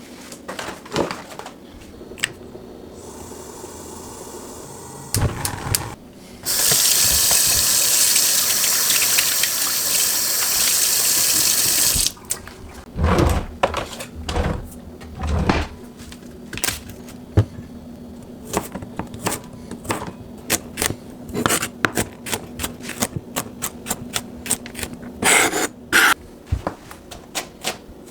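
Kitchen tap running full for about five seconds, then a long run of quick, sharp kitchen clicks and knocks, several a second.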